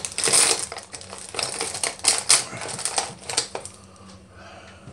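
Hands rummaging through small fishing-tackle items, a quick run of sharp clicks and handling noise that dies down about three and a half seconds in.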